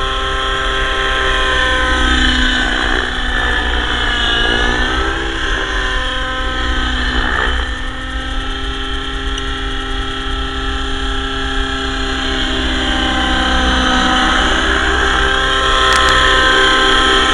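Avant Aurora 90 radio-controlled helicopter in flight, its motor and rotor head running with a steady whine whose pitch dips and rises several times as it manoeuvres.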